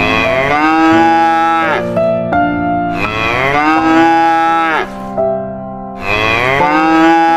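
A cow mooing: three long moos about three seconds apart, each sliding down in pitch at its start. Keyboard music with held notes plays underneath.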